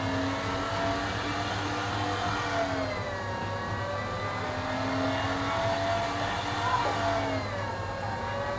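Electric meat grinder running as it extrudes cheese-stick dough, a steady motor whine over a low hum. Its pitch sags twice, about three seconds in and again near the end, then comes back up.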